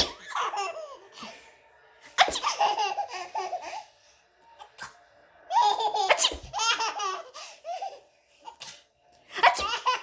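Sneezes every few seconds, each sharp burst followed at once by a run of high-pitched laughter.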